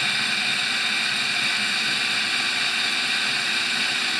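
Cordless drill running steadily, its bit boring a small hole into a 3D-printed ABS plastic part.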